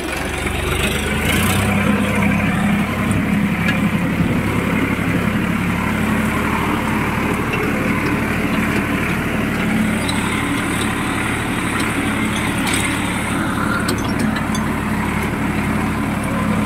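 Sonalika tractor's diesel engine running while the tractor is driven, heard from the driver's seat. It grows louder over the first two seconds, then runs evenly.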